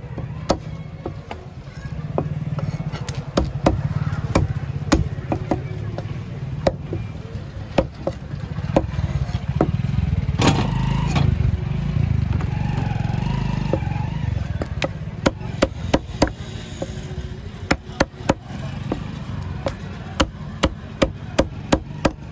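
Heavy cleaver chopping fish on a wooden block: repeated sharp strikes, coming faster in the second half. Under it runs a low engine rumble that swells in the middle.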